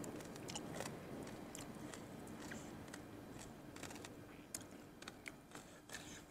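Faint chewing and mouth sounds of a person eating, with scattered small irregular clicks.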